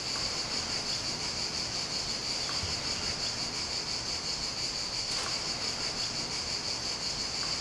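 A chorus of insects in a summer meadow: a steady, unbroken high-pitched buzz.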